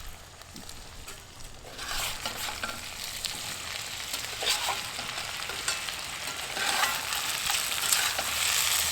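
Sliced potatoes and onion sizzling in oil in a cast iron skillet while a spatula stirs and scrapes them. The sizzle comes up about two seconds in and grows louder toward the end.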